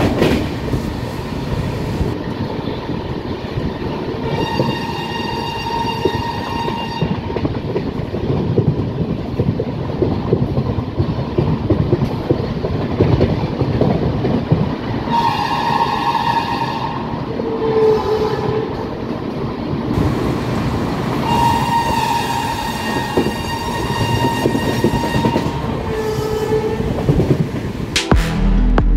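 LHB passenger coach running at speed, heard at its open door: a steady loud rumble with wheel-on-rail clatter. A train horn sounds several times over it: a blast about four seconds in, another in the middle, a short one just after, a long one near the end and a last short toot. The rail noise cuts off abruptly just before the end.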